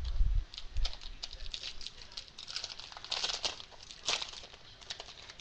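Foil wrapper of a Topps baseball card pack crinkling as it is handled and opened, a run of light crackles that are densest a little past the middle.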